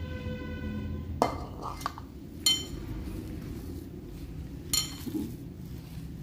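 Glass mixing bowl clinking and ringing as a stiff chana dal and wheat-flour dough is kneaded in it by hand. A ringing tone cuts off with a knock about a second in, then two sharp clinks come about two and a half and five seconds in, over the soft rustle of the dough being worked.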